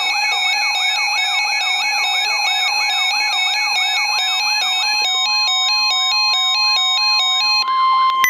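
Electronic siren and alarm tones layered together: a rising whoop repeating about three times a second over alternating two-pitch beeps and a steady tone. About five seconds in the beeping changes pattern, and near the end only the steady tone is left.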